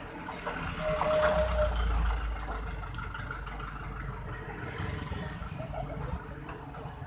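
Road traffic: a low motor-vehicle rumble that swells about a second in and then eases off, with a short steady tone near its loudest point.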